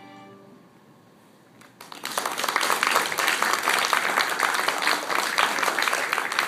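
The last held chord of a string quartet (violins and cello) fades out, and after about a second and a half of quiet an audience breaks into applause, steady clapping that carries on to the end.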